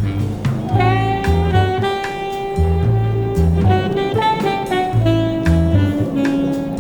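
Jazz music: a saxophone playing long held notes over a stepping bass line and drums.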